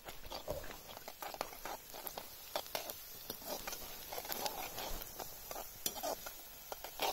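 Metal slotted spoon stirring and scraping onion masala frying in a pan over a wood fire, with scattered soft clinks and a faint sizzle. The onions are almost fried through.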